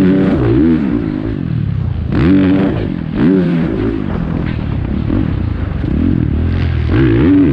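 Dirt bike engine revving in repeated blips, its pitch rising and falling several times: at the start, about two and three seconds in, and again near the end.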